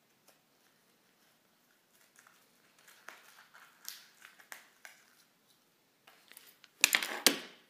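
Small plastic packets of antibiotic ointment being handled, with faint light clicks and rustles at first and then a short, loud burst of crinkling near the end.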